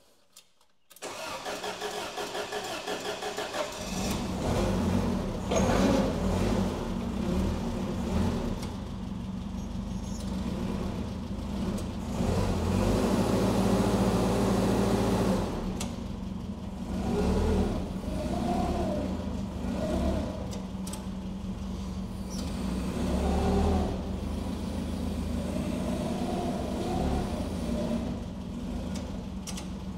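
Propane forklift engine cold-started after sitting for months: the starter cranks from about a second in, the engine catches at about four seconds and then runs steadily, its speed rising and falling a few times.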